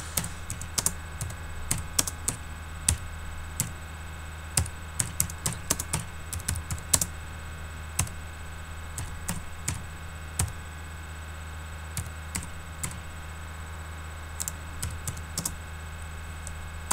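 Typing on a computer keyboard: irregular runs of keystrokes, quick and dense for the first seven seconds or so, then sparser, over a steady low hum.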